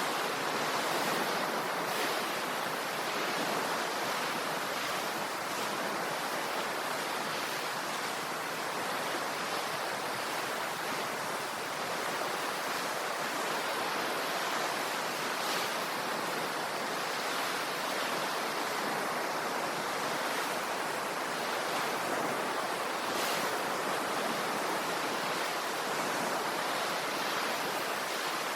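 Ocean waves washing onto the shore: a steady, continuous rush of surf with little deep rumble.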